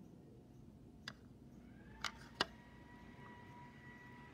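Three faint clicks as a lump of modelling clay is handled on a paper plate. A faint steady high tone comes in about halfway through and holds.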